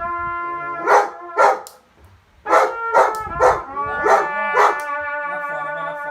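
A trumpet playing slow, held notes of a mournful call while a dog barks repeatedly over it in short, loud barks, several about half a second apart. Both stop briefly about two seconds in, then go on.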